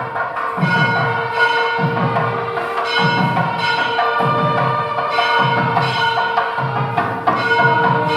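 Background music: bell-like tones over a steady held drone, with a low drum beat about once a second.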